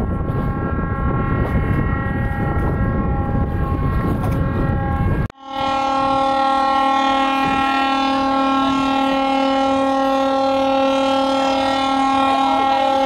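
Ship's horn sounding one long steady blast at a single pitch. For the first five seconds heavy wind noise on the microphone nearly covers it; after a sudden break about five seconds in, the horn comes through clear and loud.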